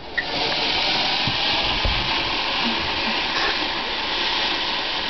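Ground fountain firework spraying sparks with a steady hiss that starts suddenly and keeps going.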